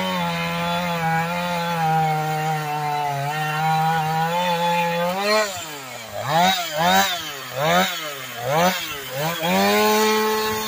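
Husqvarna 450 X-Torq two-stroke chainsaw at full throttle cutting through a log for about five seconds. Then the throttle is blipped about five times, held high for a moment, and let back down near the end.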